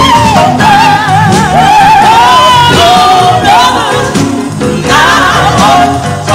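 Live gospel singing by a group of women. The lead voice runs through wavering, ornamented lines.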